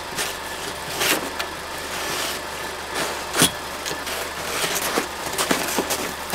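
A car running, a steady low engine hum with scattered clicks and knocks; the sharpest knock comes about three and a half seconds in.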